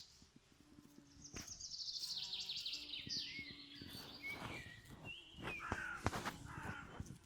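Songbird singing: a rapid trill of high notes that falls in pitch, followed by a few whistled phrases, over a faint steady low hum.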